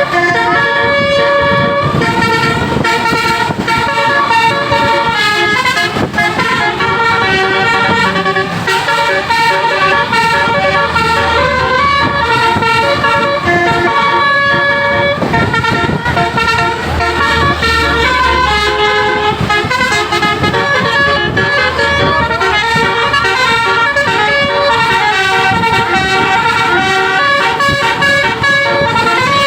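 Basuri-type telolet musical air horn on a tour bus playing a continuous melody of quick, stepped notes, several horn tones sounding together.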